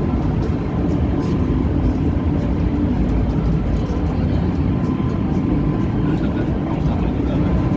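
Steady low drone of a passenger ship's engines, heard on board.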